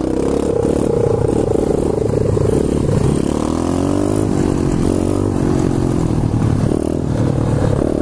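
A 125cc pit bike's single-cylinder engine revving hard under throttle as the rider holds a wheelie, its pitch rising and falling with the throttle.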